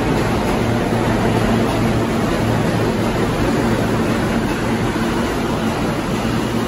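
New York City subway train moving along the platform: a loud, steady rumble of the cars on the rails with a faint low hum underneath.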